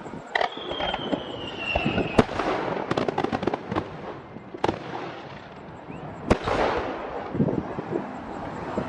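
Aerial firework shells bursting: four loud bangs about two seconds apart, with a run of crackling between them. A whistle falling slightly in pitch leads into the second bang.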